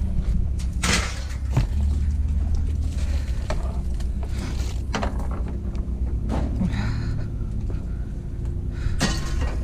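Scattered knocks and clunks of scrap being handled and moved about, the sharpest about a second in and near the end, over a steady low rumble.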